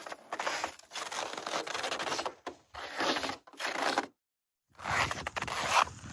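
Boots crunching and scraping in hard snow, one step after another in short rasping strokes, with a brief break about two-thirds of the way through.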